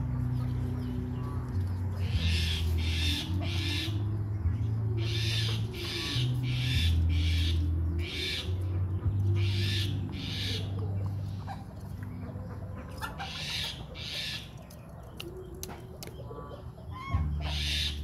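Short, harsh, raspy calls of caged young common mynas, in runs of two to four calls about two a second with pauses between runs, typical of begging for food. A low steady hum lies underneath.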